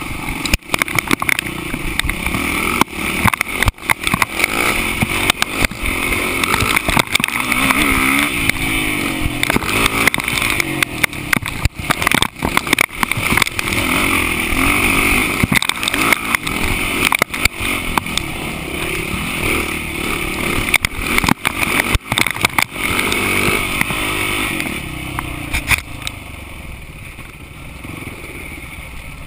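Off-road vehicle engine running under changing throttle on a rough dirt trail, with frequent knocks and wind buffeting on the mounted camera. It eases off and gets quieter about 25 seconds in.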